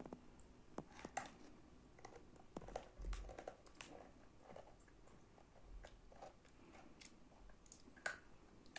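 A child biting and chewing crunchy cracker sticks: faint, scattered crunches, with a sharper crunch near the end.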